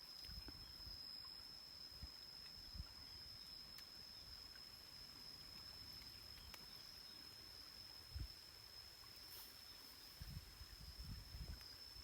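Quiet forest ambience: a steady high-pitched insect drone, with soft low thumps now and then, like footsteps, several of them near the end.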